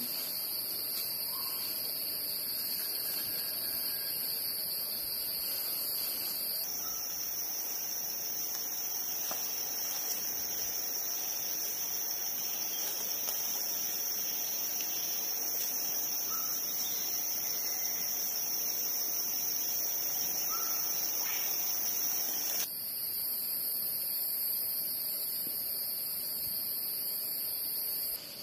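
Forest insects, crickets or cicadas, in a continuous high-pitched chorus. The shrill drone jumps up in pitch about a quarter of the way in and drops back near the end, with a few faint bird chirps beneath it.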